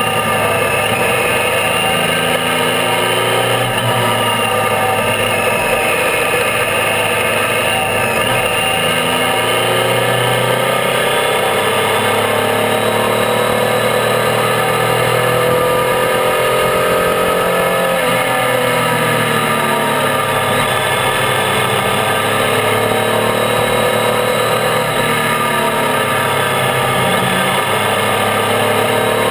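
Triumph Tiger 800's three-cylinder engine under way, its pitch rising and falling with the throttle, with a long climb in revs about a third of the way in that drops away just past halfway. Wind and road noise run steadily underneath.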